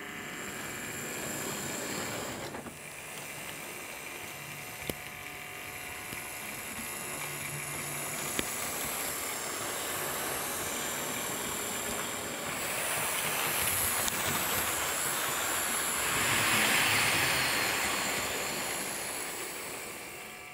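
Hornby OO-scale Flying Scotsman model locomotive running on its track: a steady whirring of the small electric motor and wheels on the rails. It grows louder and fades as the train passes close, loudest near the end, with a few sharp clicks over the track joints.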